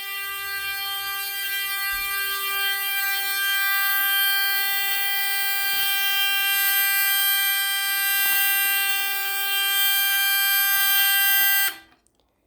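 Fire alarm buzzer on a demonstration board sounding one continuous, buzzy, horn-like tone, set off by a smoke detector going into alarm. The tone cuts off suddenly near the end.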